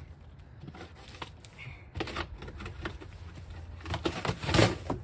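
Plastic packaging and cardboard rustling and scraping as packing is cut and pulled away, with irregular small clicks and a louder rustle about four seconds in.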